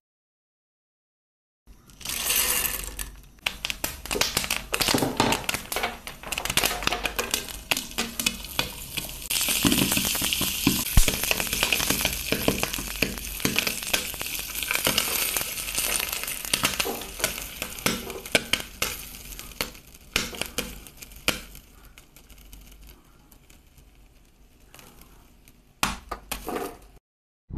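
Popcorn kernels popping in hot oil in a pan, a fast crackle of sharp pops over sizzling. It starts about two seconds in, is densest in the middle and thins to scattered pops near the end as the popping finishes.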